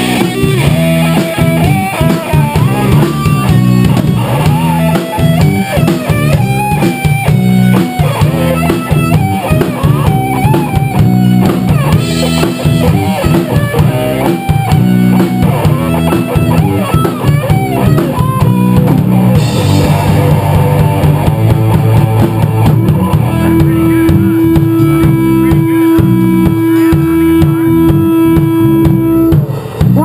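Live rock trio playing: electric guitar lead over bass guitar and a drum kit, with one long held note from about two-thirds of the way in until near the end.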